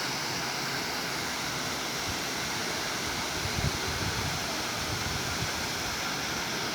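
Steady rushing water, an even continuous roar. A few low bumps a little past the middle.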